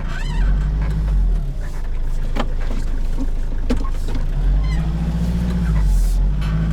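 Hyundai Porter light truck's diesel engine running at low speed, its note picking up about four and a half seconds in, with a couple of short knocks in the middle.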